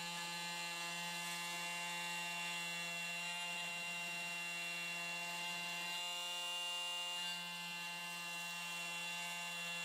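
Oscillating multi-tool with a round blade running at low speed while cutting into a power bank's plastic case: a steady, fairly faint buzzing hum, dipping slightly about seven seconds in.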